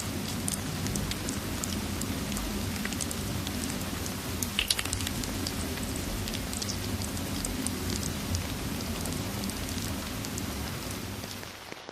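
Steady rain mixed with a crackling fireplace: a constant hiss and low rumble with scattered sharp pops, a louder cluster of pops about halfway through. The sound dips briefly just before the end.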